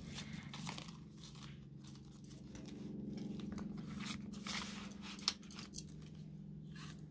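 Polymer banknotes and a plastic binder envelope crinkling and rustling in short irregular bursts as the cash is handled and tucked into the envelope, with a faint low steady hum underneath.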